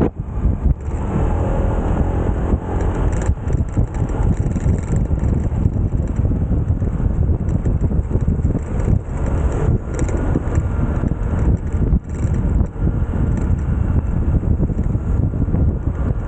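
Motorcycle running on the road, with heavy wind buffeting on the microphone.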